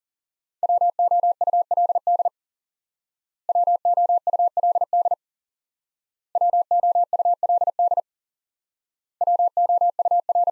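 Morse code beeps on a single steady pitch: the word "would" sent four times at 40 words per minute, each sending lasting under two seconds with a pause of about a second between them.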